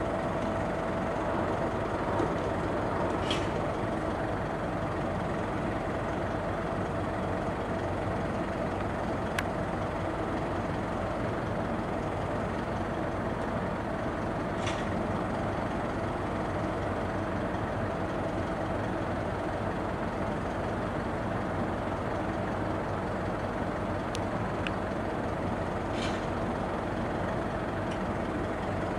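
Truck engine running steadily to power the hydraulics of a truck-mounted aerial work platform as its boom moves, with a faint steady whine in the first few seconds and a few brief faint clicks.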